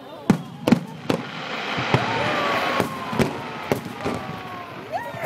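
Aerial firework shells bursting in a string of about nine sharp bangs at irregular intervals, with a denser noisy stretch around two to three seconds in and a thin whistle falling slowly in pitch through the middle.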